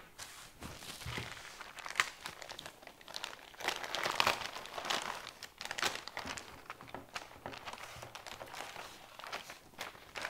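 Clear plastic bag crinkling and rustling in short, irregular handfuls as it is handled and its contents are pulled out, with a sharp click about two seconds in.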